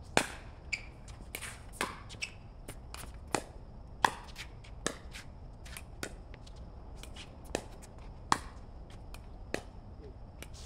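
Pickleball rally: paddles striking the hollow plastic ball back and forth, sharp pops roughly every second, with fainter ticks and shoe scuffs in between.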